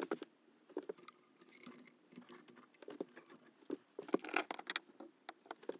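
Metal nuts and bolts being set down one by one around the edge of a cardboard stencil to weigh it flat: faint, irregular clicks and taps, busier in the second half.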